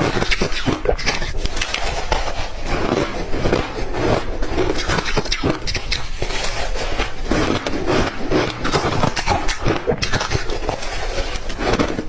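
Clear ice being bitten and chewed close to the microphone: a dense, unbroken run of sharp crunches and cracks.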